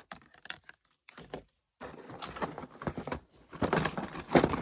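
Crinkling and rustling with scattered small clicks and taps. The sound stops briefly about a second and a half in, then comes back denser.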